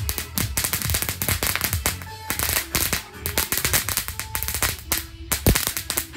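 Rapid, dense crackling and popping of fireworks, with music playing underneath.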